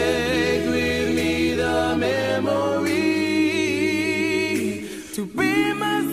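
A male a cappella vocal group singing held, wordless harmonies over a low bass voice. The chord changes about two seconds in, and again after a brief dip near five seconds.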